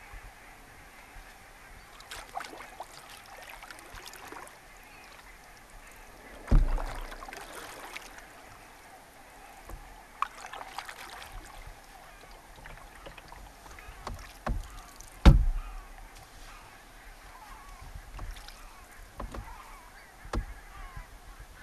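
A distant flock of geese honking and chattering throughout, with the knocks and splashes of a canoe paddle over it: sharp thumps about six seconds in and again around fifteen seconds, and smaller knocks near the end.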